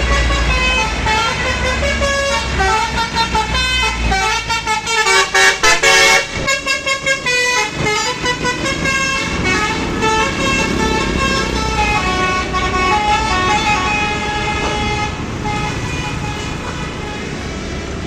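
Tour bus telolet horn playing a melody of stepping, changing tones over a bus engine, loudest about five seconds in and breaking into rapid short blasts soon after.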